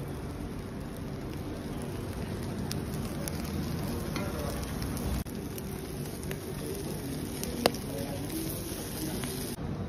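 Whole fish sizzling and crackling on a wire grill over a charcoal fire, a steady hiss with one sharp pop about three-quarters of the way through.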